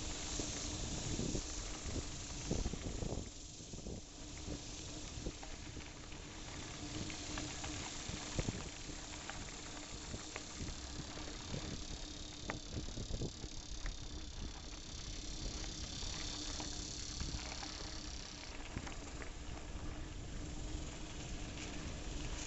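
Movement noise along a rough dirt and grass trail: a steady rushing hiss with many irregular small knocks and rattles from bumps, over a faint steady low hum. A high buzz comes in a little past halfway and stops suddenly about four seconds later.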